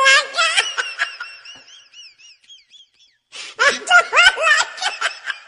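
Laughter in two bursts: the first trails off in a thin wavering tone, and the second comes about three and a half seconds in.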